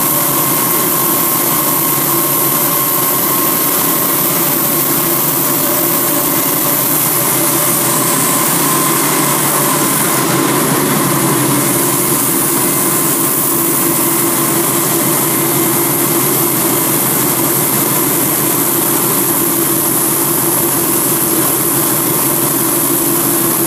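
Diamond wire saw running steadily as its wire cuts through a stone block under streams of cooling water. It makes a constant loud hiss with a few steady machine tones underneath.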